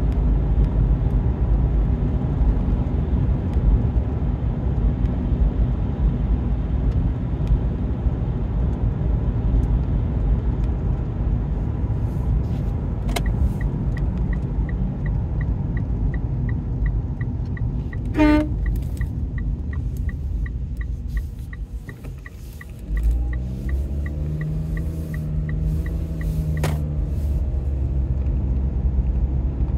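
Car driving on a country road, heard inside the cabin: steady engine and tyre rumble. From about halfway through comes a regular ticking, about three a second, for some twelve seconds. The noise dips briefly near the two-thirds mark before a lower engine drone comes back in.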